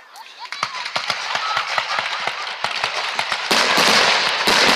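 Aerial fireworks going off: rapid crackling pops start about half a second in, thickening into a dense, loud crackle about three and a half seconds in.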